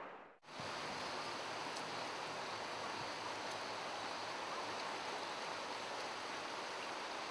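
Steady rush of river water flowing over shallow riffles, cutting in after a brief silence at the start.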